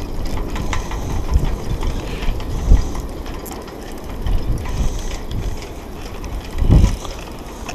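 Spinning reel being cranked in against a hooked mullet, its gears and clicking mechanism rattling steadily. Low thumps of wind buffeting the microphone come a couple of times.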